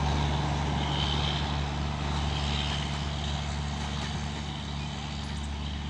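Garib Rath Express train running past with a steady rumble and low hum that slowly fades.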